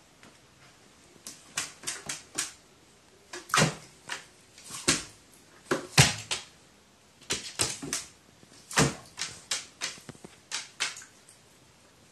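Irregular sharp taps and knocks on a hard surface, often two or three in quick succession, with short gaps between clusters.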